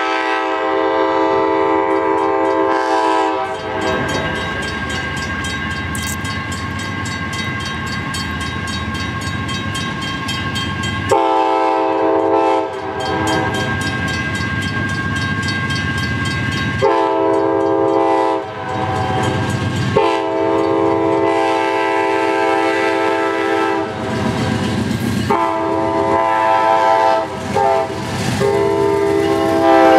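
Amtrak GE Genesis P42DC diesel locomotive sounding its air horn in a series of long blasts, several seconds each, as the train moves off. Between blasts the locomotive's diesel engine runs under load and the train rumbles on the rails.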